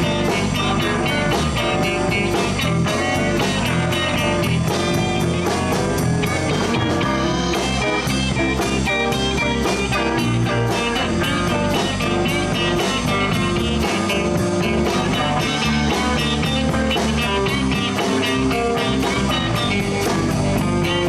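Live blues band playing an instrumental break: electric guitar soloing over bass and a steady drum-kit beat.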